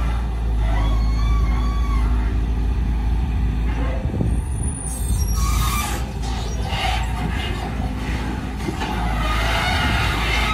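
Volvo EC210DL long-reach excavator working: its diesel engine runs steadily under load while the hydraulics whine with the boom and arm moving. A noisier stretch near the end comes as the bucket works the wet mud in the canal bed.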